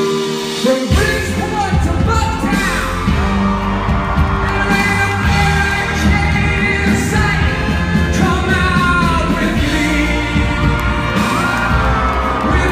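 Live rock band over a venue PA: a soft held keyboard chord, then drums and bass come in together about a second in and the full band plays on loudly, with yells and whoops from the audience over it.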